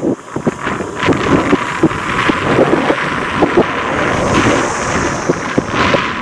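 Wind buffeting the microphone hard over the sound of an approaching steam locomotive.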